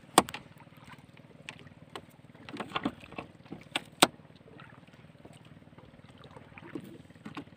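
Small fishing boat's engine running with a steady low drone, with several sharp knocks and clatters against the hull while a longline is being set; the loudest knocks come right at the start and about four seconds in.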